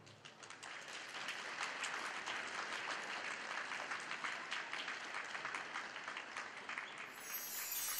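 Ice-rink audience applauding: many hands clapping in a dense, even spatter.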